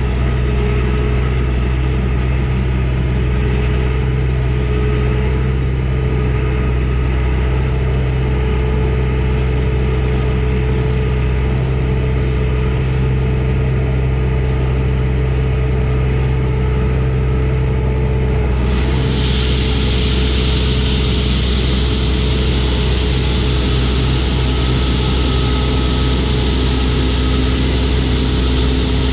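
Old carbureted gasoline engine of a loaded grain truck running steadily under way, heard from inside the cab. A steady hiss comes in suddenly about two-thirds of the way through and stays.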